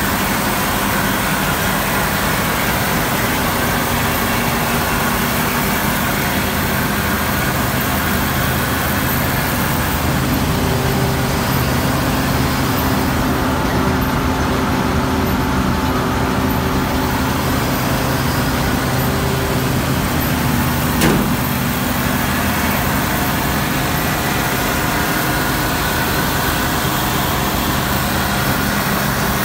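Claas Lexion 760 combine harvester running steadily while standing, its engine and belt-driven pulleys turning in an even drone, with one short click about two-thirds of the way through.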